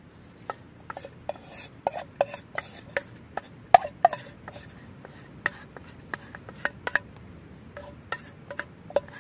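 A spatula scraping and tapping inside a coated camping cooking pot as cooked instant noodles are scraped out into a plastic bowl: an uneven run of short scrapes and clicks, loudest a little under four seconds in.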